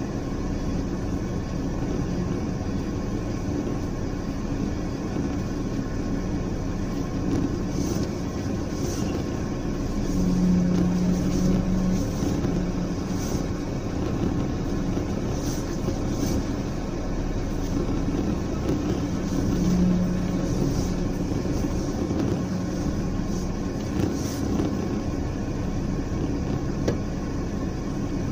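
Steady motor-vehicle rumble with a low hum that swells briefly twice, with a few light ticks.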